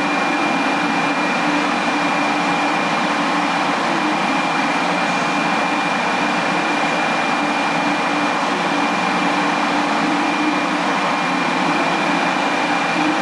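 Steady hum and whir of a stationary Shinkansen 500 series train waiting at the platform, its onboard electrical equipment and blowers running, with a constant high-pitched whine over it.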